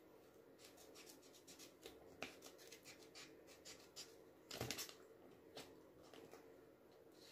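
Faint crinkling and small clicks of plastic sticker sheets being handled and cut with scissors, with a brief louder cluster of rustling strokes about four and a half seconds in.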